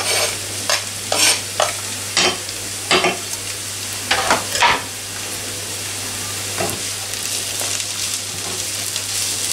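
Diced onions and grated carrots sizzling in clarified butter in a frying pan. In the first half there is a series of about eight short scrapes and knocks as a knife pushes the carrots off a cutting board into the pan. After that the sizzling goes on steadily while the vegetables are stirred.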